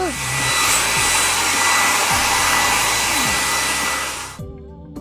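Car-wash air dryer blowing a steady rush of air that cuts off suddenly about four seconds in.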